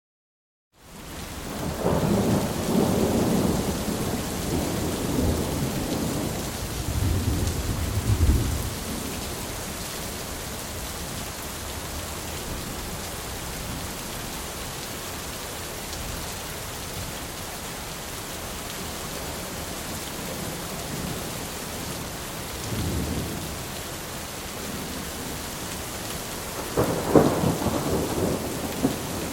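Thunderstorm: steady rain with rolling thunder, fading in out of a moment of silence at the start. A long rumble runs through the first several seconds, a shorter one comes about two-thirds of the way through, and a sharper, louder clap near the end.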